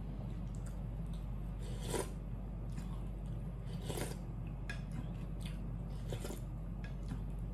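Eating instant noodle soup from a spoon: short slurps of broth about two seconds apart, with small scraping and chewing sounds between them, over a steady low hum.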